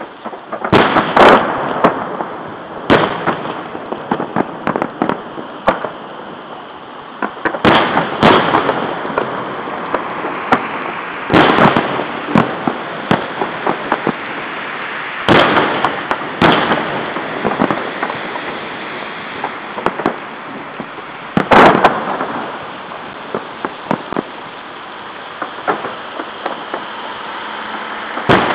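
Fireworks display: aerial shells bursting with sharp bangs every few seconds, with many smaller crackles in between. Heard through a webcam's microphone, with the sound cut off at the top.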